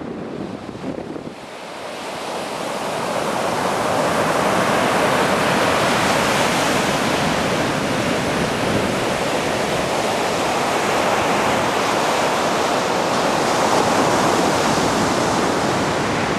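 Ocean surf breaking and washing over the rocks: a steady rushing noise that swells over the first few seconds and then holds loud.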